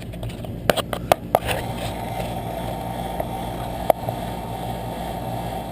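Air handler's GE ECM blower motor running, with a steady rush of air over a low hum that grows a little fuller about a second and a half in. Four sharp clicks come about a second in, and one more near four seconds.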